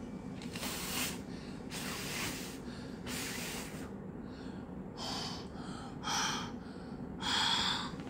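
A child huffing warm breath onto a heat-sensitive, colour-changing silicone pop-it toy to make it change colour: about seven short, breathy exhalations in a row.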